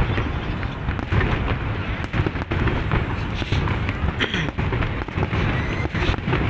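Fireworks display: aerial shells bursting one after another in a rapid, continuous barrage of bangs over a low rumble.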